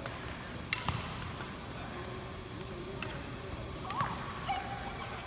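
Badminton rackets striking a shuttlecock during rallies: several sharp cracks at uneven intervals, echoing in a large sports hall.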